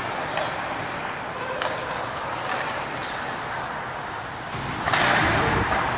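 Live ice hockey play heard in an arena: a steady wash of skates on the ice with a few light stick clicks, then a sharp crack about five seconds in followed by about a second of louder hiss.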